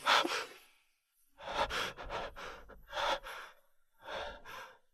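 A person breathing heavily: several ragged, gasping breaths with short pauses between them.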